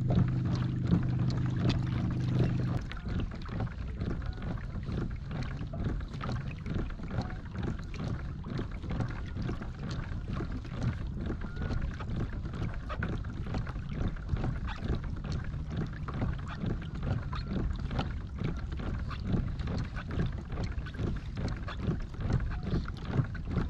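Water lapping and slapping against a fishing boat's hull, with irregular small splashes and some wind on the microphone. A steady low hum cuts off about three seconds in.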